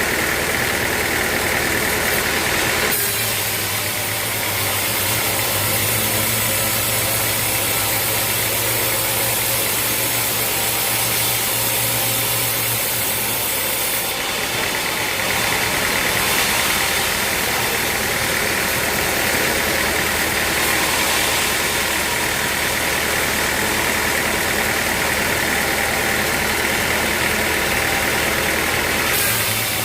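Sawmill machinery running steadily: a continuous engine drone under a loud high hiss. Its tone shifts a few seconds in and again about halfway.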